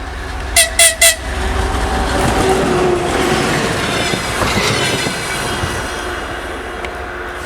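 TEP70 diesel passenger locomotive sounding its horn in three quick short toots, a greeting from the crew, then the locomotive and its coaches running past, the noise swelling and then fading.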